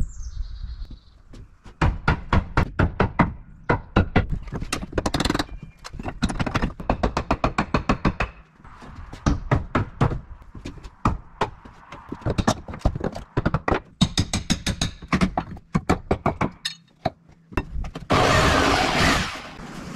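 Hammer blows on wood in quick runs of about four strikes a second, with short pauses between runs. About two seconds before the end comes a short burst of harsh rasping noise.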